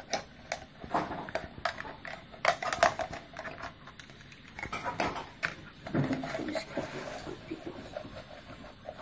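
Box cutter blade cutting through a thin plastic bottle: an irregular run of sharp clicks and scratchy scrapes as the blade works along the cut line.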